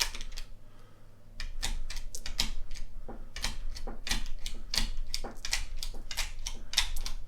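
Rounds being stripped out of a Glock magazine with the unloading nub of a Real Avid Smart Mag tool: a run of sharp clicks, about three a second, as cartridges are pushed out one after another, with a short pause about a second in.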